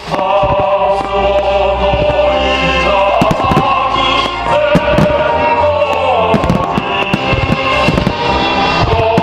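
Fireworks bursting in quick, irregular bangs and crackles over music with sustained notes.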